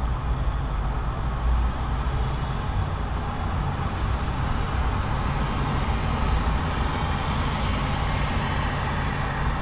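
Fairly heavy urban road traffic heard close to the road: a continuous rumble of passing vehicles. A higher hiss builds through the middle and eases near the end.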